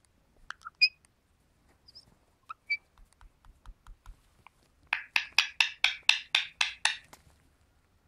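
Indian ringneck parakeets: a few faint chirps and clicks, then a quick run of about a dozen sharp clicking notes, some six a second, lasting about two seconds.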